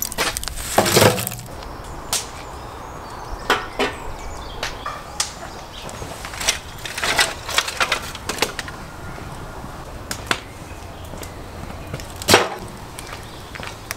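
Sharp wooden knocks and clatter of firewood logs and split kindling being handled, with a rattling pour of charcoal into a metal stove about a second in. The loudest knock comes near the end.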